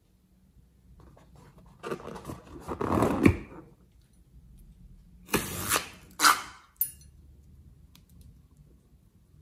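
Hands handling and squeezing a rubber balloon filled with slime: rubbery rubbing and squeezing noise in a spell about two seconds in, then several short bursts around five to seven seconds in.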